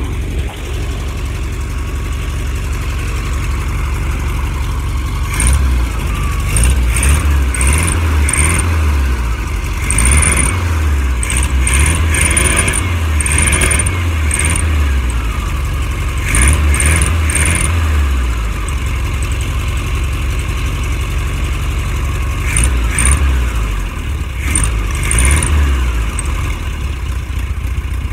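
1969 VW Beetle's air-cooled flat-four engine running at idle, with the throttle opened by hand at the carburettor again and again, so the revs surge for a second or a few seconds at a time and drop back.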